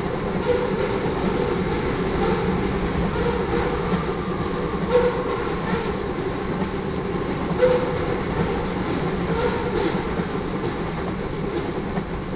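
Crude oil tank cars of a freight train rolling past steadily: a continuous rumble of steel wheels on rail, with a few sharper clacks over the rail joints.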